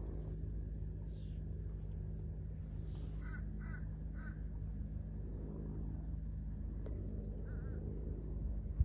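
A crow cawing, three short calls about three to four seconds in and a fainter one near the end, over a steady low background hum.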